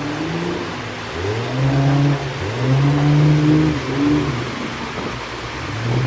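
A work boat's engine revving up and down in several swells, over a steady rush of fast, turbulent water.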